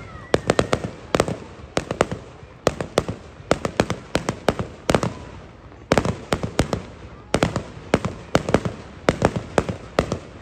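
Fireworks display: aerial shells bursting in quick clusters of sharp bangs, several bangs every second with short gaps between groups.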